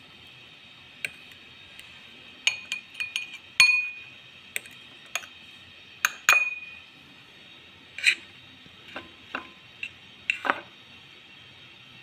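Metal fork clinking against a glass bowl and a ceramic plate while chicken nuggets are turned in beaten egg and breadcrumbs: many short, sharp clinks at irregular intervals, a few of the loudest ringing briefly.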